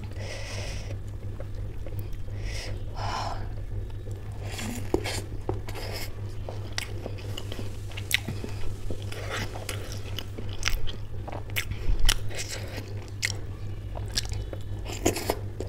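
Close-miked eating of soggy samosa chaat with ghugni: chewing and biting, with wet mouth clicks, smacks and soft crunches at irregular intervals. A steady low hum runs underneath.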